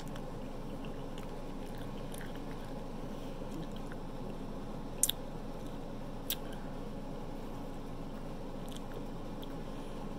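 Close-miked chewing and biting of cheesy pizza, with a few sharp mouth clicks; the loudest is a quick double click about five seconds in, with another a second later. A steady low hum runs underneath.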